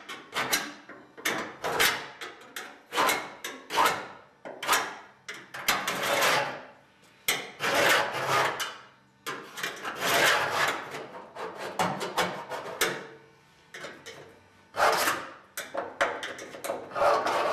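A steel scribe scratching a line into the old trunk floor's sheet metal along the edge of the new floor pan, in repeated short strokes about one a second.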